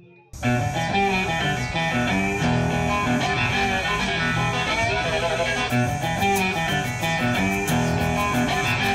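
Background music: a guitar-led track that cuts in abruptly just after the start, with a steady ticking beat joining about six seconds in.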